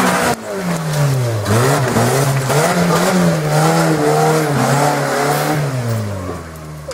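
4x4 trials buggy's engine revving hard, its pitch swinging up and down over and over as the wheels spin for grip on a muddy slope, then sinking and dying away near the end.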